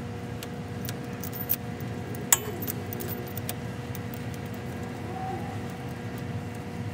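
Light metallic clinks and clicks as a Heim-joint tie rod end and its sleeve are handled and threaded by hand onto the tie rod, with one sharp click a little over two seconds in. A steady low hum runs underneath.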